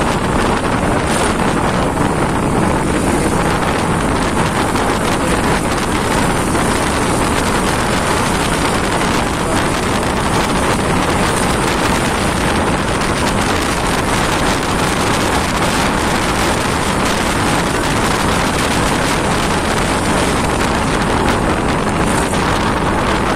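Steady wind rush on the microphone while a Honda PCX scooter rides along at speed, mixed with the scooter's running engine and tyre noise.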